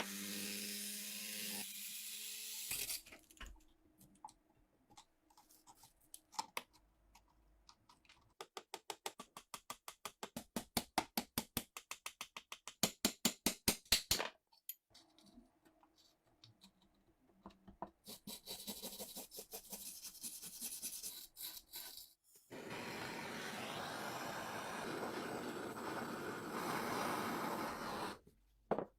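Hand work on rusty gun-steel parts: a run of quick, evenly spaced scraping strokes, about four a second and loudest in the middle of the run, and later several seconds of steady scrubbing noise.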